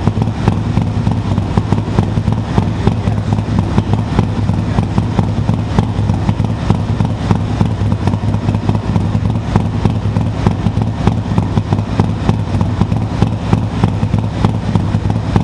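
Harley-Davidson Road Glide CVO's V-twin, freshly built with an S&S 128 big-bore kit and 550 cam, idling steadily with an even pulsing beat. The engine is being heat cycled to settle the new parts in.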